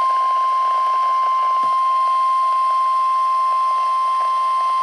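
NOAA Weather Radio's 1050 Hz warning alarm tone, one steady high beep held without a break over a faint radio hiss, the signal that a warning is about to be read.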